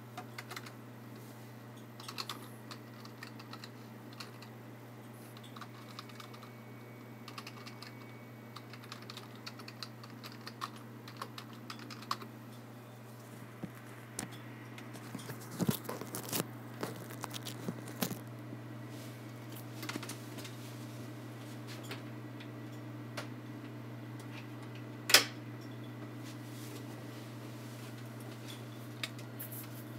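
Typing on a computer keyboard, keys tapped in short runs, over a steady low hum. About halfway through come a few louder knocks, and near the end one sharp click.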